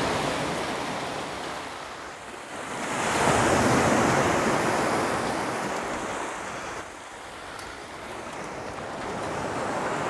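Sea waves breaking and washing over a rocky pebble shore. The rush swells and fades in slow surges, with one big surge a few seconds in and another building near the end.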